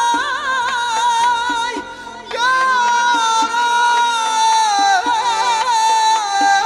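Live Khorezmian folk song: a man sings high, ornamented, wavering lines into a microphone over doyra frame drum strokes and accordion, with a brief break in the singing about two seconds in.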